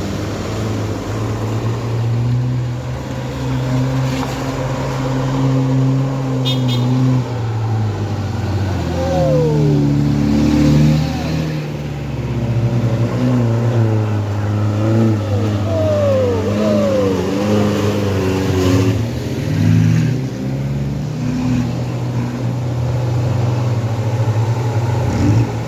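Heavy truck engine running under load, its low note holding steady, with short whines sliding up and down over it in the middle stretch.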